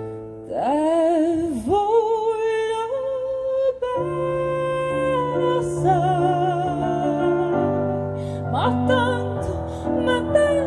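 A woman singing in operatic style with a wide vibrato on long held notes, amplified through a microphone and accompanied by a digital piano.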